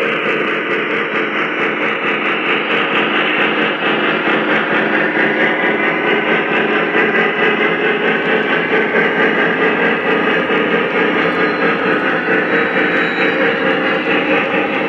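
O-scale model freight train, led by a Lionel LionMaster Big Boy steam locomotive, rolling past on three-rail track: a steady running rumble of wheels and cars with a quick, even pulsing.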